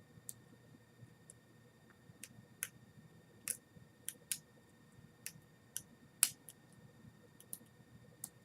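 Irregular small metallic clicks and ticks of a lock pick working the pin stack of a cheap five-pin padlock held under a tension wrench, with one louder click about six seconds in.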